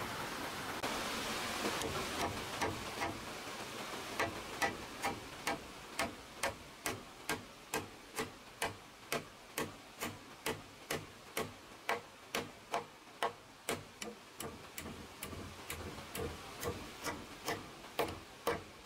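A steady run of sharp knocks, evenly paced at about two and a half a second. They start faintly about two seconds in, grow stronger, and stop just before the end, over a light steady hiss.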